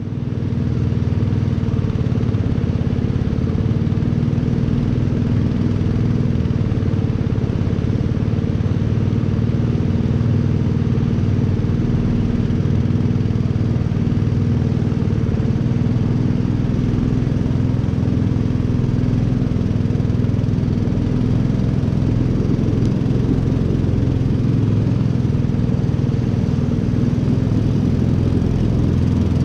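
Engine of a narrow wooden motor boat running steadily at an even speed, a low, unchanging drone that fades in at the start.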